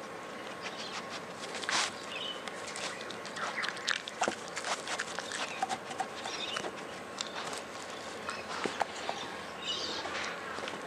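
Chocolate Labrador puppy licking and mouthing a small rubber Kong stuffed with cottage cheese, with irregular wet clicks and soft knocks as the toy shifts on the carpet under his nose and paws.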